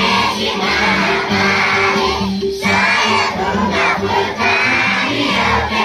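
A large crowd of schoolchildren singing loudly together in unison, with a brief pause between phrases about two and a half seconds in.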